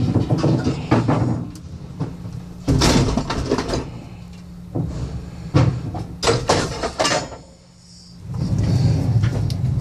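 Irregular bangs and clattering knocks as junk and furniture are thrown off a trailer and land, over a steady low hum.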